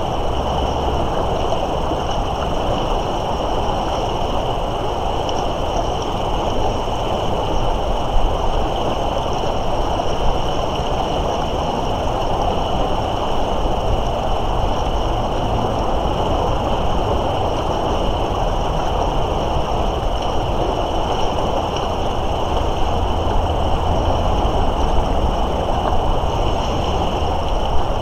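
Steady rushing noise of the Moira River running high in the spring thaw, mixed with wind buffeting the microphone, with a thin steady high whine on top.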